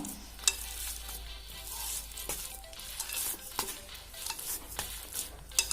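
Hands kneading a soft, risen yeast dough: sticky squelching and slapping with scattered sharp clicks, the loudest near the end.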